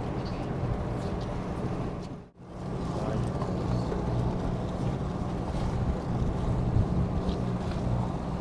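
Fishing boat's engine running with a steady low hum, under wind noise on the microphone. The sound cuts out for a moment about two seconds in, then carries on the same.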